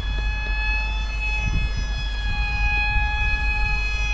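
Small electric motor and propeller of a supercapacitor-powered foam toy plane whining in flight: a steady high-pitched drone with overtones that wavers slightly in pitch. Wind rumbles on the microphone underneath.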